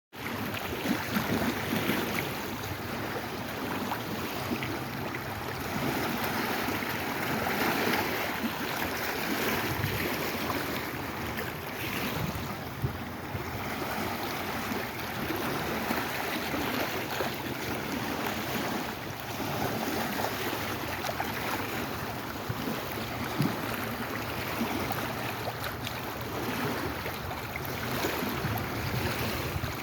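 Lake Erie waves washing, a continuous rush of water that swells and eases every few seconds, with small splashes and clicks.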